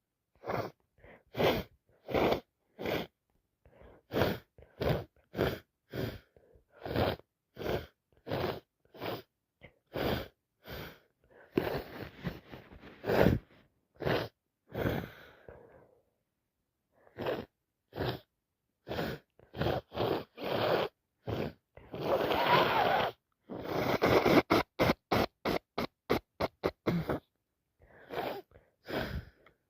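A person sneezing and sniffing over and over: a long run of short, sharp bursts about two a second, with silence between them. There are a few longer, noisier breaths around the middle and again about three quarters of the way through, followed by a quicker run of bursts.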